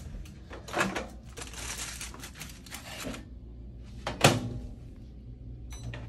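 Microwave oven being loaded and started: a run of clicks and knocks from its door and keypad, with one loud click about four seconds in. After it, the oven runs with a low steady hum.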